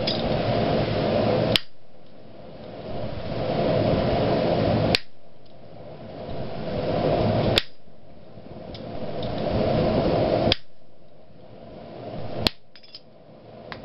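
Hand hammer striking a top tool set on a red-hot iron bar at the anvil: about five sharp metal blows, two to three seconds apart, the last two closer together. Between the blows there is a steady background rush that dips after each blow and swells back.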